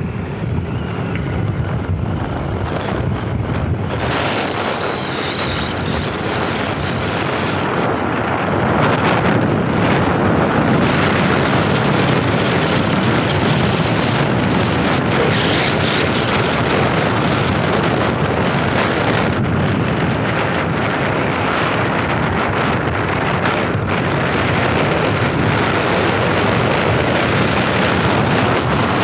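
Wind rushing over the microphone of a camera riding on a moving vehicle, over steady road and engine noise; the rush grows louder about eight seconds in.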